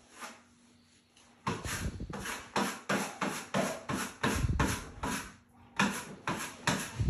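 Drywall knife scraping across wet setting-type joint compound (5-minute hot mud) on a drywall wall, in quick rhythmic strokes of about two to three a second that start about a second and a half in, with a few dull knocks among them.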